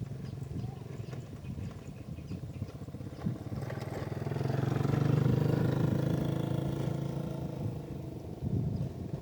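A motor vehicle's engine passing by, growing louder to a peak about halfway through and then fading away, over a steady low rumble.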